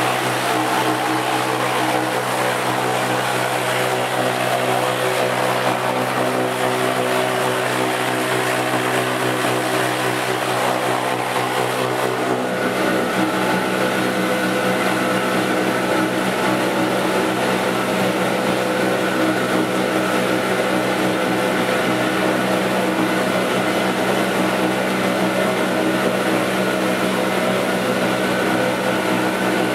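A 50-litre bowl cutter running, its knives spinning through meat emulsion in the turning bowl: a loud, steady machine hum carrying several steady tones. About twelve seconds in, the sound changes and becomes rougher and fuller in the low end.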